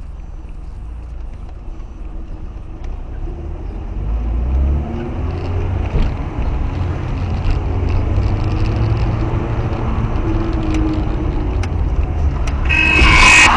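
Car engine and road noise heard from inside a moving car, the engine note rising as it accelerates. Near the end a loud horn blast sounds suddenly.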